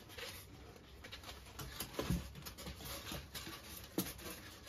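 Light scratching, squeaking and tapping of polystyrene foam blocks being worked by hand as cocktail sticks are pushed in, with two sharper knocks about two and four seconds in.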